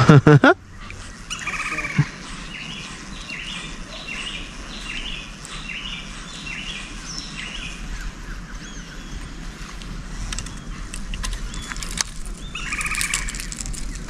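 Wild birds calling: a long run of short chirps, a couple a second, through the first half or more, and a harsher ringing call near the start and again near the end. A brief loud burst opens it.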